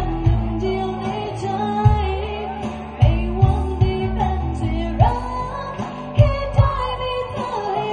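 Music with a person singing a melody over a band backing with bass and a steady beat.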